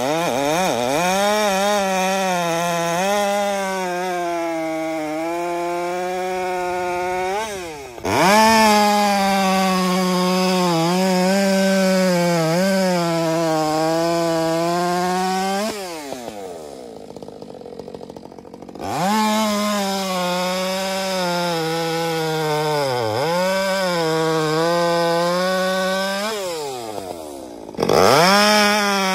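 Stihl chainsaw cutting through beech logs at full throttle, its engine note sagging and recovering under load in the cuts. It revs up sharply and loudly about eight seconds in and again near the end, and drops back to idle for about three seconds in the middle before revving up again.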